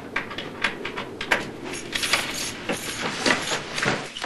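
Irregular knocks, clicks and rattles from a front door with a glass pane as it is handled and opened.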